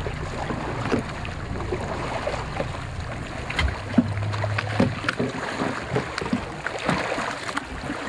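Sea water splashing and lapping where a whale shark and a school of small fish feed at the surface, with many short splashes over a low steady hum from the nearby boat's engine.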